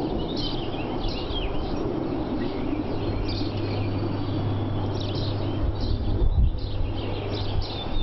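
Songbirds chirping and trilling in short repeated calls over a steady low outdoor rumble, with a low hum coming in about three seconds in.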